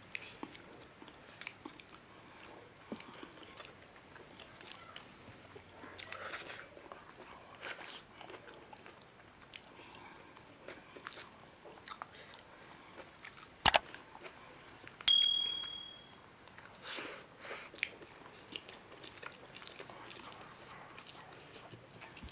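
Close-miked chewing and biting of food, with many small mouth clicks and crunches. About two-thirds of the way through there is a sharp click, then a louder tap with a brief bright ding that rings for under a second.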